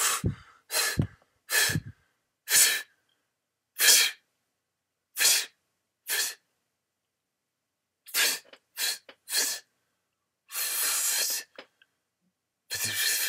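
A man making a series of short, sharp breathy huffs and hisses through the mouth instead of words, about a dozen separated by silent pauses, with one longer hiss near the end.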